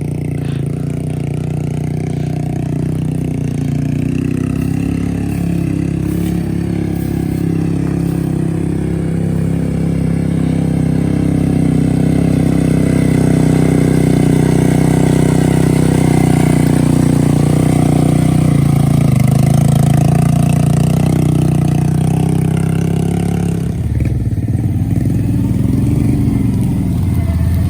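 Honda Rancher 420 ATV's single-cylinder engine running steadily under load as it pulls through mud. Near the end the engine note changes suddenly, dropping and then rising again.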